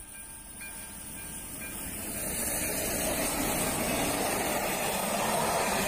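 AŽD ZV-02 electronic level-crossing bell dinging about once a second, soon drowned out as a passenger train behind an electric locomotive approaches and runs over the crossing. The wheel-on-rail noise grows steadily louder toward the end.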